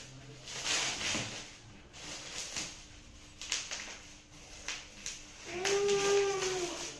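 Plastic bubble wrap and bag crinkling and rustling in short bursts as a tripod is pulled out of its packing. Near the end comes a drawn-out vocal note of about a second that rises and falls slightly.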